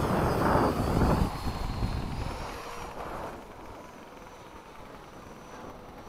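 Electric ducted fan of a 90 mm RC F-22 jet passing fast: a loud rush for the first second and a half with a whine that drops in pitch, then fading as the jet moves away.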